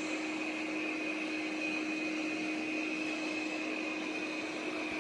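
Robot vacuum cleaner running steadily, an even whirring hiss with a low hum and a high whine held throughout.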